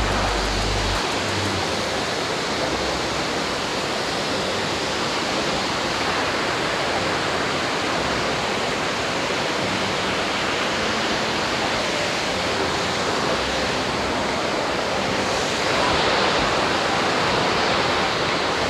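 The Rhine Falls waterfall: a steady, loud rush of falling water.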